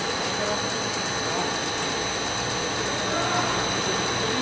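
Compound air-bubble film machine running: a steady mechanical whirr of its drives and rollers, with a constant high-pitched whine.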